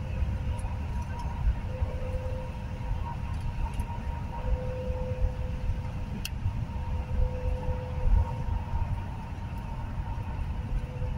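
Road noise inside a vehicle moving at highway speed: a steady low rumble of tyres and wind through the window glass, with a faint steady whine running under it.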